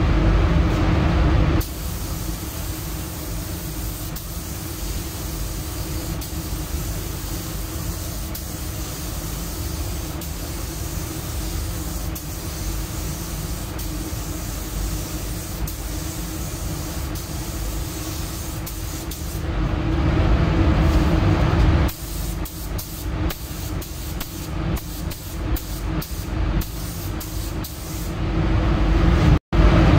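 Paint spray gun hissing steadily as it lays base coat on a car's doors, over a steady low drone. In the second half the hiss cuts in and out in many short bursts as the trigger is pulled and released.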